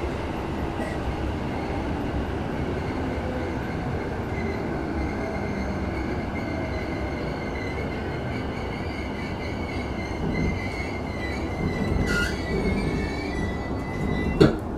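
Keihin-Tohoku Line E233-series electric train heard from inside the car, running and braking into a station, with a high thin brake and wheel squeal that grows stronger in the second half. A single sharp knock comes just before the end.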